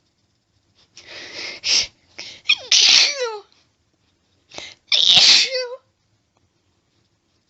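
A woman sneezing twice in an allergic fit, the sneezes about two seconds apart. Each is preceded by short hitching intakes of breath and ends in a falling voiced tail.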